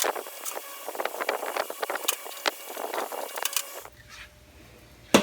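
Rapid, irregular metallic clattering and rattling of a steel tool chest drawer being handled. It stops abruptly a little under four seconds in, leaving a faint low hum.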